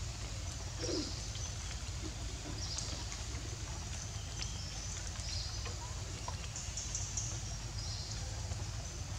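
Birds calling in the forest: short high chirps repeating every couple of seconds over a steady low rumble.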